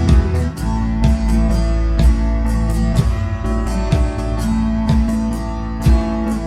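Background music: strummed guitar with a bass line and a steady beat.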